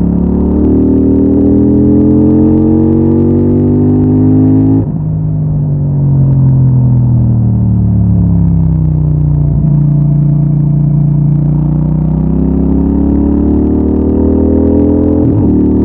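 CFMOTO 800NK Advanced's parallel-twin engine through its stock exhaust, ridden under way: the revs climb for about five seconds, then the throttle closes and the revs fall away for several seconds. It then accelerates again, with a gear change near the end.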